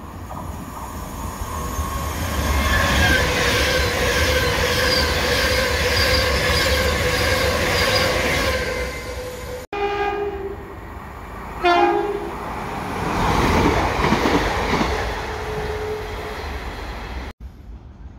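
Passenger trains running through a station. The first approaches and passes with a steady, building rumble and hum. After a cut, a train sounds its horn in two short blasts, about a second and a half apart, then rumbles past.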